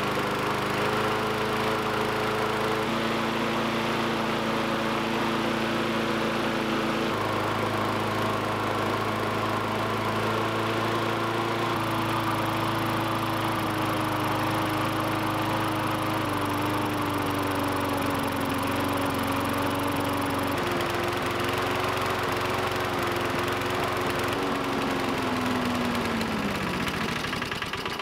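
Push lawn mower's small gasoline engine running on brake parts cleaner, its pitch shifting in a few sudden steps, then falling as the engine slows and stalls near the end. The owner puts the stall down to a wrong fuel-air mix in the non-adjustable carburetor, or to plastic parts inside the carburetor dissolving.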